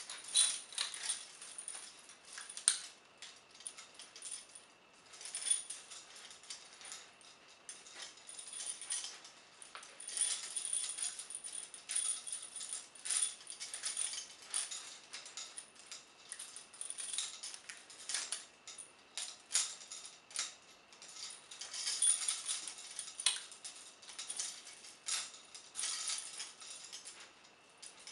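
Vintage heavy steel prisoner shackles, handcuffs and a long connecting chain down to leg irons, clinking and jangling irregularly as the wearer shifts and moves.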